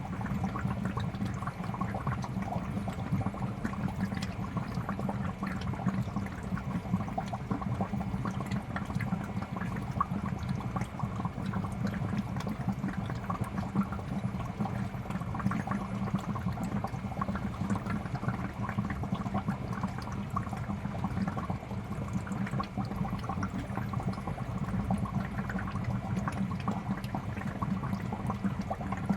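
Aquarium air bubbler sending a continuous stream of bubbles up through the tank water, a steady dense bubbling with a low hum underneath.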